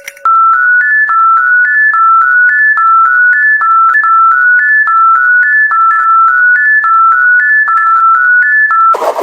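Electronic beeping tune stepping up and down through three close notes, about three notes a second, repeated over and over. Near the end it cuts off and a loud noisy rumble takes over.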